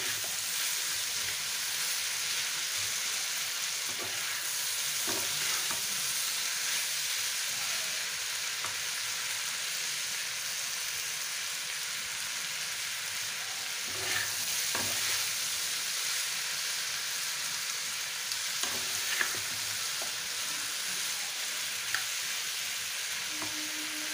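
Diced potato and chopped chicken sizzling steadily in hot oil in a nonstick frying pan, being browned before the spices go in, with a few light scrapes and taps of a spatula as it is stirred.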